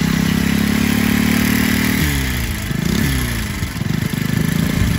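Ducati Cucciolo 48cc single-cylinder four-stroke clip-on bicycle engine running steadily. About two seconds in its revs fall and it settles into a slower, uneven run with separate firing beats.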